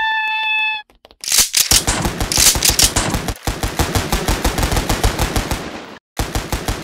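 Rapid automatic gunfire in long, fast bursts, breaking off briefly near the end before resuming. It is preceded by a held pitched tone that cuts off just under a second in.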